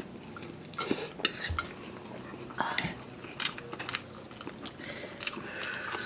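Eating utensils clinking and scraping against a bowl or plate in a run of short, irregular clicks.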